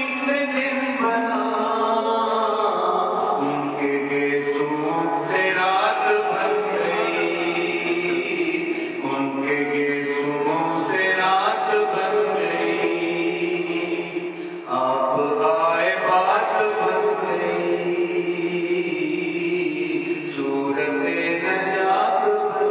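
A man singing a naat, a devotional poem in praise of the Prophet, alone without instruments, in long held notes.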